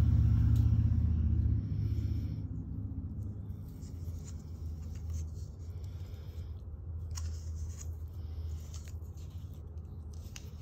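Faint crinkling and small ticks of PTFE thread-seal tape being stretched and wrapped around the threads of a gas heater valve fitting, over a steady low hum. A louder low rumble fades out in the first two seconds.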